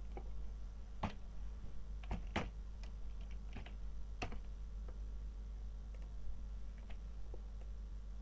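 Scattered, irregular clicks of a computer keyboard and mouse as a formula is typed, over a low steady hum.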